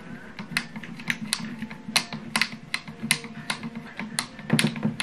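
Sharp, irregular metal clicks, about three a second, from a screwdriver working a screw into the light bar's metal mounting bracket as it is tightened.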